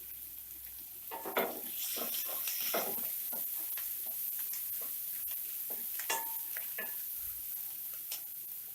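Chopped onions sizzling in hot oil in a pan. A spatula scrapes and clacks against the pan as they are stirred, in bursts about one to three seconds in and again around six seconds in.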